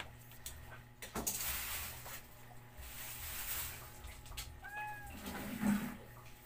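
A domestic cat gives one short meow about two-thirds of the way in, over rustling and shuffling as a plastic bag is handled. A soft low thump comes near the end.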